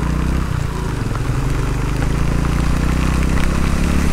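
Honda Pop 110i's small single-cylinder four-stroke engine running steadily, with a steady hiss of rain over it.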